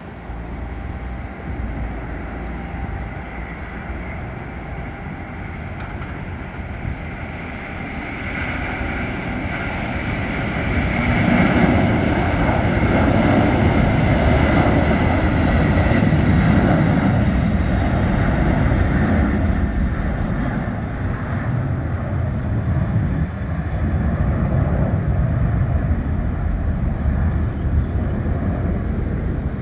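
The three turbofan engines of a McDonnell Douglas MD-11F freighter at takeoff thrust. A rumble with a whining tone builds as the jet rolls down the runway, is loudest from about eleven to seventeen seconds in as it passes, then eases to a steady rumble as it climbs away.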